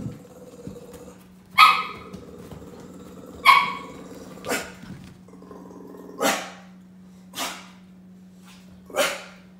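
A dog barking in play: six short, sharp single barks, one to two seconds apart.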